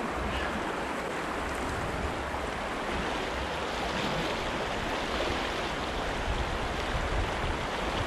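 Mountain stream rushing steadily, swollen and running high with snowmelt.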